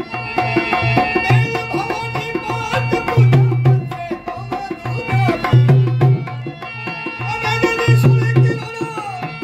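Dholak, a two-headed barrel hand drum with bolt tuning, played by hand in a folk bhajan rhythm. Deep bass strokes come round about every two seconds with quicker, sharper slaps between them, over sustained melodic tones.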